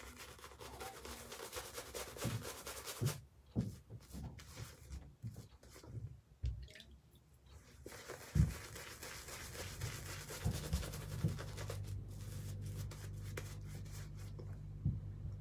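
Shaving brush scrubbing soap lather onto a bearded face: a fine, crackly bristle-and-foam rubbing that comes in spells and pauses twice, with a few soft thumps. From about ten seconds in, a steady low hum sits underneath.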